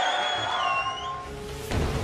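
Studio audience noise with a long high whistle-like tone that rises, holds and sags slightly, then about 1.7 s in a TV show's bumper music sting hits with a deep boom.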